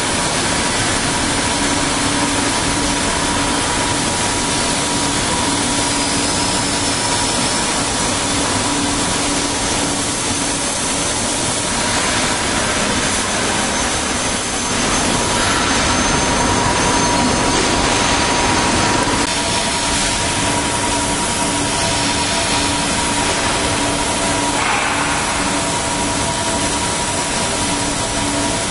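Cutting torch on a Kaltenbach WBZ 1500 plate profiling machine cutting steel plate: a loud, steady hiss, with faint steady machine tones underneath.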